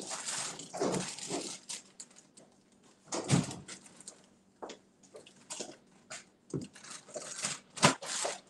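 Household handling noises in a kitchen: scattered knocks, clicks and rustling, with a louder knock about three seconds in and a sharp one near the end.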